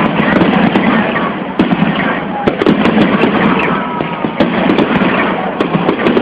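Aerial fireworks bursting and crackling, a dense unbroken run of pops with sharper bangs among them.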